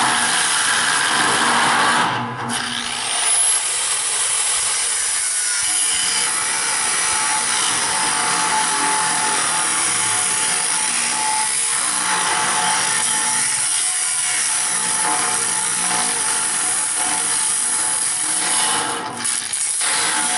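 A power tool cutting steadily through the steel shell of a propane tank, easing off briefly about two seconds in and again near the end.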